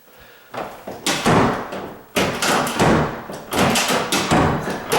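An interior door being pushed shut and pulled open several times, its latch clicking and knocking against the strike plate as the fit is tested after bending the strike plate's tab.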